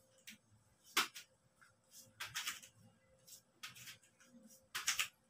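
Faint, scattered brushing and rustling from a person's warm-up movements, with one sharp tap about a second in and a quick cluster of rustles near the end.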